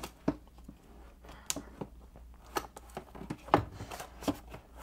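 Irregular clicks, taps and light knocks of papers, notebooks and small objects being handled and moved about on a desk while someone searches for a notebook.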